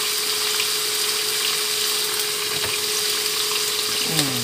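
Meat sizzling in a frying pan on an induction cooktop: a steady hiss over a steady low hum.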